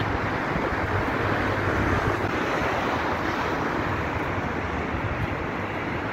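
Steady outdoor rush of wind on the microphone mixed with the hum of distant traffic on the road below, with no distinct single event.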